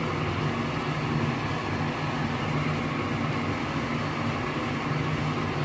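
Steady machine hum with an even hiss over it, unchanging throughout.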